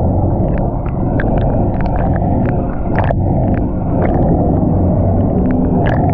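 Underwater sound through an action camera's waterproof housing held just below the sea surface: a steady, muffled low rumble of moving water, with scattered sharp clicks and ticks, about three a second, at irregular intervals.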